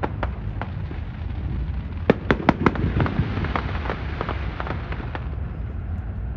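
Fireworks display: a continuous low rumble of aerial shells with scattered sharp cracks, and a quick run of four loud cracks about two seconds in. The cracking thins out near the end.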